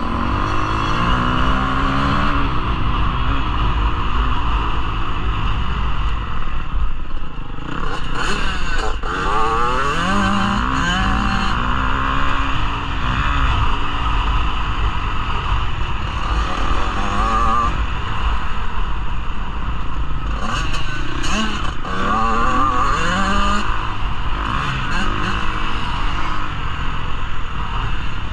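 Dirt bike engine revving up and dropping back again and again as it is ridden hard through the gears, heard from the bike itself.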